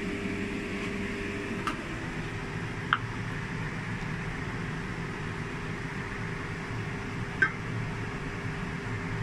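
A steady mechanical hum with one faint steady tone, with a few light clinks from crockery being handled, the sharpest about three seconds and seven seconds in.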